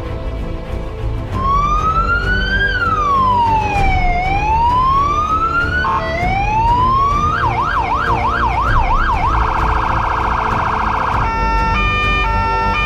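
Electronic siren of a Ford Ranger fire-service pickup cycling through its tones. From about a second and a half in it gives a slow wail rising and falling, then a quick yelp of repeated fast sweeps, then a very fast warble. Near the end it switches to a stepped two-tone pattern.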